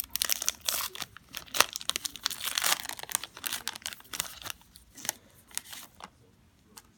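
Baseball card pack wrapper being torn open and crinkled, a dense run of crackling and rustling that thins out about two-thirds of the way through.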